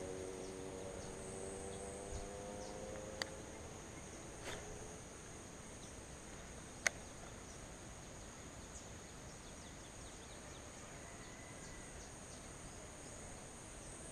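Steady high insect chorus, with a faint low hum fading away over the first few seconds. Two sharp clicks cut through, one about three seconds in and a louder one near seven seconds.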